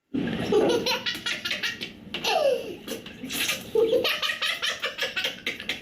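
A baby laughing in strings of quick, repeated bursts, in several bouts.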